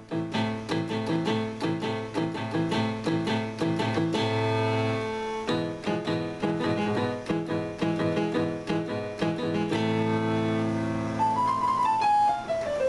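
A synthesizer keyboard played with both hands: chords and a melody in a piano-like voice, with a run of notes falling in pitch near the end.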